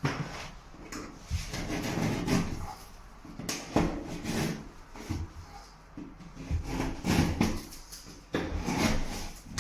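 Plasterboard being cut by hand with a blade, in irregular rasping strokes, opening the wall to the marked outline of the patch.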